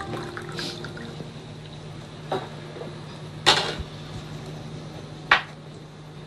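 Water being poured into a glass, with three sharp knocks; the loudest falls about halfway through.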